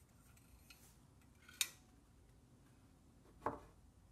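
Small metal clamps being handled and set around a copper boiler core: a sharp metallic click about one and a half seconds in, then a duller knock about three and a half seconds in.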